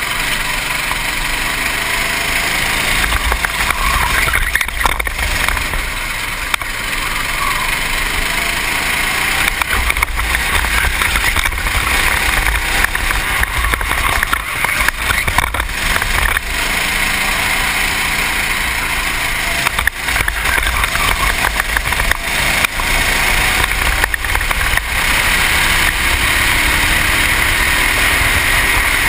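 Racing kart engine running under load, its pitch rising and falling through corners and straights, heard from a helmet-mounted camera with heavy wind rumble on the microphone.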